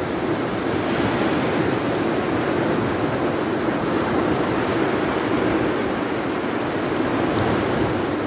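Sea surf breaking and washing up the sand at the water's edge, a steady rush of waves.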